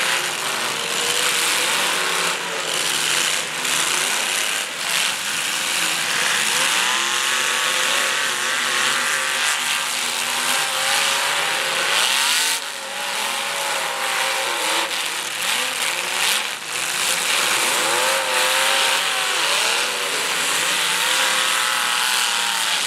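Several demolition derby cars' engines revving up and down at once, their pitches rising and falling over each other, with a few sharp bangs of cars hitting each other.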